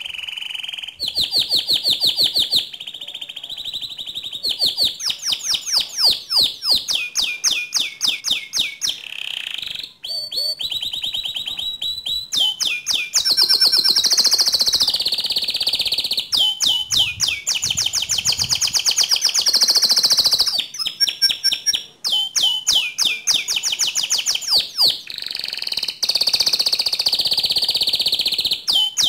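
Domestic canary singing in full, vigorous song: long phrases of rapid repeated high notes and rolling trills, each series changing to a new note type every second or two, with only brief pauses between phrases.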